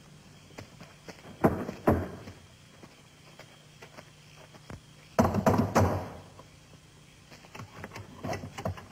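Knocking on a heavy wooden door: two knocks about a second and a half in, a louder run of knocks past the middle, and a few lighter taps near the end, over a faint low hum.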